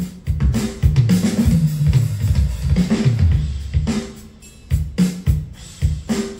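Yamaha Genos 2 arranger keyboard playing its 'Dirty Kit' drum sound: a heavy beat of bass drum and snare hits with a deep low end, easing off for about a second past the middle before picking up again.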